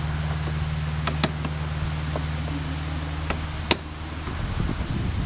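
A few sharp clicks and taps from handling parts inside a truck door, over a steady low hum that stops about four seconds in, after which wind buffets the microphone.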